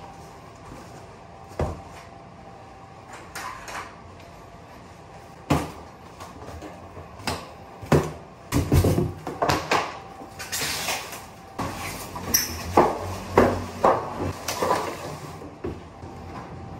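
Large cardboard air-conditioner box being handled and opened: scattered knocks, bumps and scrapes of cardboard, coming thicker in the second half, with a stretch of rustling about ten seconds in.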